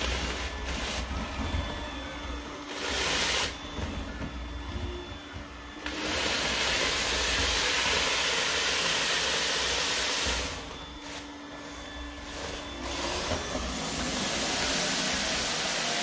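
Roomba s9 robot vacuum running over loose uncooked rice on a hardwood floor: a steady motor hum, with loud hissing rushes about six seconds in and again near the end as it sucks up the grains.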